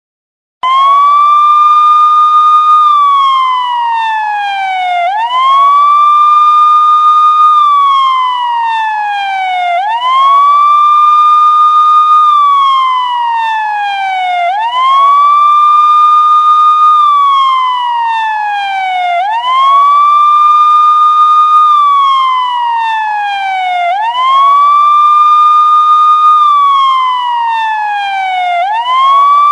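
Police siren wailing, starting about half a second in: each cycle sweeps quickly up in pitch, holds the high note about two seconds, then slides slowly back down, repeating about every four and a half seconds.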